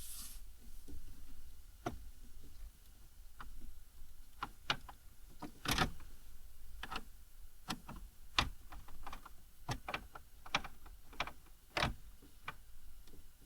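Irregular sharp clicks and taps of hand tools and plastic trim being worked on a car's dash, with louder knocks about six seconds in and again near twelve seconds.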